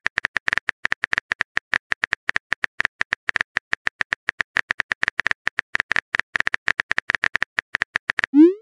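Phone keyboard typing sound effect: quick, irregular clicks at about eight to ten a second. It ends in a short rising swoop.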